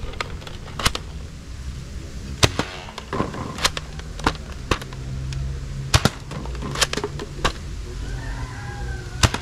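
Mega Dual Strike toy blaster being worked and fired: about nine sharp plastic snaps and clicks at uneven intervals, over a low steady rumble.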